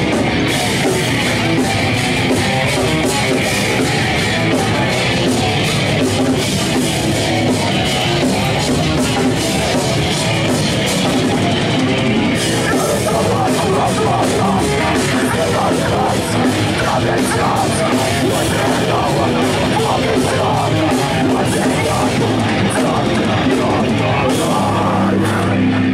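Live heavy metal band playing loud: electric guitars, bass guitar and a drum kit with rapid drum hits, heard from within the crowd.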